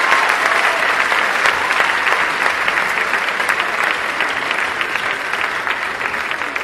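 Audience applauding, a dense clapping that slowly fades.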